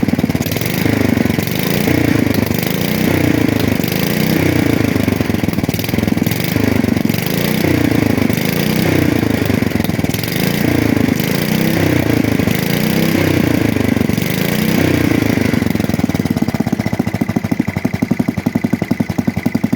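Small engine of a 1966 Custom 6 garden tractor running after reassembly. Its speed surges up and down about once a second, then settles into a steady run near the end.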